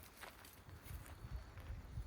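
Sheep moving about on the farm: soft scattered hoof steps and small knocks over a low rumble.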